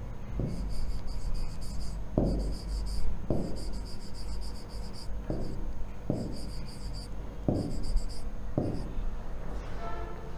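Marker squeaking on a whiteboard in short bursts of writing strokes, with soft thumps between them, over a low steady hum.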